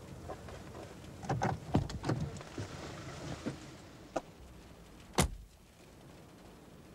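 A passenger getting out of a car: the door latch clicking open and a few knocks and rustles, then the car door shut with one hard bang about five seconds in.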